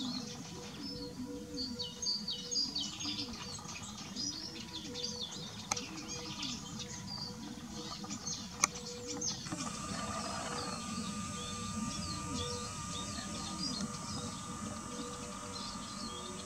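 Songbirds chirping and singing outdoors, with a low note repeating about every second and a half. About ten seconds in, a steady high whine joins them.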